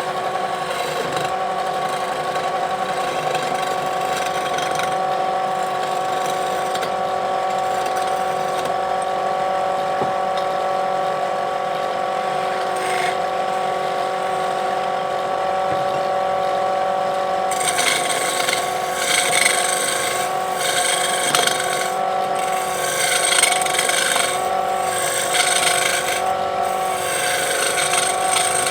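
Wood lathe motor running with a steady hum. About two thirds of the way in, a turning tool starts cutting the spinning wood, adding an uneven, rasping scrape over the hum.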